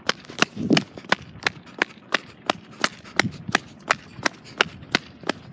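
Running footsteps on a brick paver walkway, a steady run of sharp slaps at about three steps a second.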